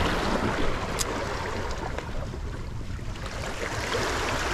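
Sea waves washing against the shore, with wind buffeting the microphone, and a single sharp click about a second in.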